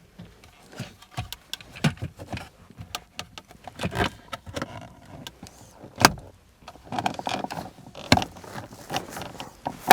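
Plastic car door trim being handled and pressed onto its clips and latches: an irregular run of clicks and knocks, the sharpest about four, six and eight seconds in.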